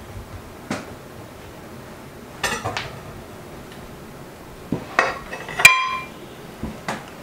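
Tableware clinking and knocking as dishes are set on a table: scattered light knocks of plates and cutlery, then one loud ringing clink about two thirds of the way through, followed by a couple of softer knocks.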